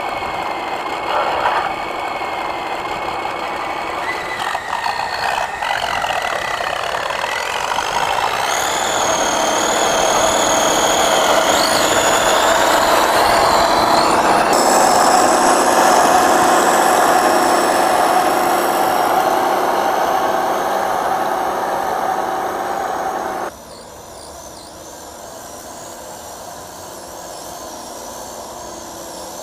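Home-made steel RC logging truck running, its drivetrain whining and rattling, the whine rising in pitch as it picks up speed. The sound drops suddenly and becomes quieter about 23 seconds in.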